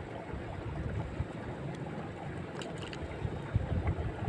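Wind buffeting the microphone: an uneven low rumble that gusts louder near the end.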